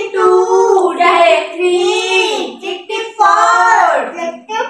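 A girl's high voice singing without instruments, in long held notes that bend up and down, with short breaks between phrases.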